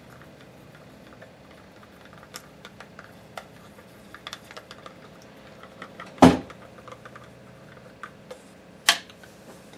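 A utensil mixing mica into a little oil in a small container: scattered light clicks and taps, with a louder knock a little after six seconds and another near nine seconds.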